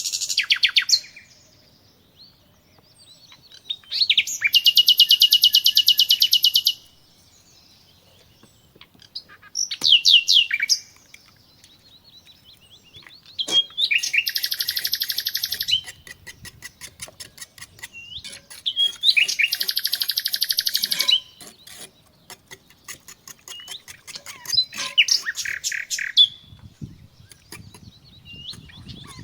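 A songbird singing loud phrases of fast trilled notes. Each phrase lasts two to three seconds and comes again every few seconds after a short pause.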